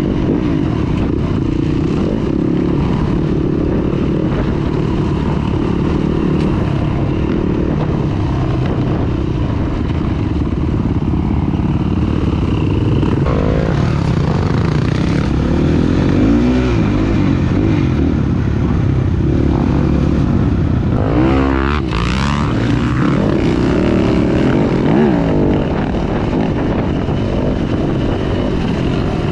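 Dirt bike engine on a trail ride, heard from the rider's own bike, running steadily as the throttle is worked. Its pitch rises and falls in a few quick revs during the second half.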